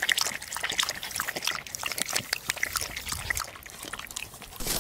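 A small dog lapping water from a bowl: quick, irregular wet laps.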